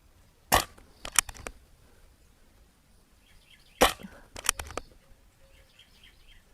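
Barra 1100Z .177 PCP air rifle firing twice, about three seconds apart: each shot is a sharp crack, followed about half a second later by a quick run of small clicks.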